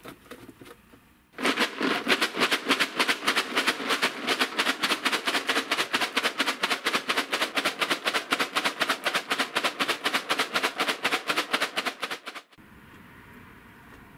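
A plastic jug holding the knife blade in an abrasive slurry, shaken hard by hand: a fast, even rattle and slosh of several strokes a second that starts about a second in and stops abruptly near the end. This is the stonewashing of the steel blade's finish.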